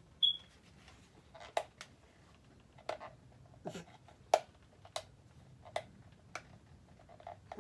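A toy blaster being handled and turned over while its battery compartment is sought: about eight sharp clicks and knocks, roughly one every two-thirds of a second.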